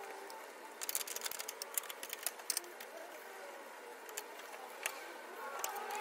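Light metallic clicks and rattles of a Toyota Fortuner's hood latch assembly being handled and worked loose by hand, in quick clusters about a second in and around two seconds in, with one more click near the end.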